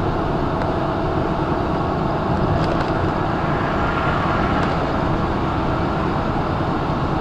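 Steady engine and road noise inside a semi truck's cab moving at freeway speed, a low rumble with a faint steady drone.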